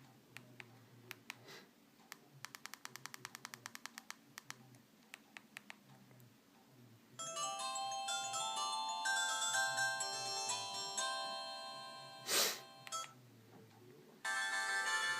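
A Xinhua dual-SIM mobile phone playing ringtone melodies through its small speaker. Sharp clicks come first, including a fast run of them. About seven seconds in a melody starts and then fades, a single loud knock follows, and a second ringtone starts near the end.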